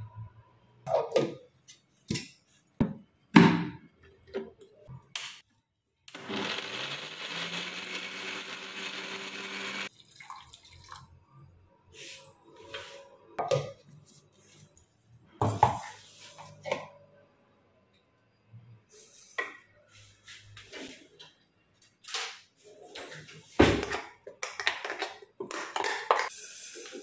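Metal spoon clinking against steel spice cups and a steel mixer jar, with many sharp knocks and clinks of jar, lid and spoon. About six seconds in, an electric mixer grinder runs for about four seconds, spinning up as it starts.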